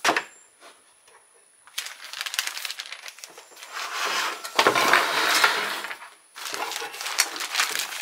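Plastic bag of bird seed crinkling and rustling as it is opened and handled, loudest about halfway through. A single sharp click comes right at the start.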